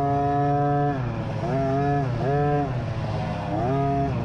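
Small 50cc dirt bike engine revving on the throttle. It climbs and holds for about a second, drops, then rises and falls in several shorter blips before climbing again near the end.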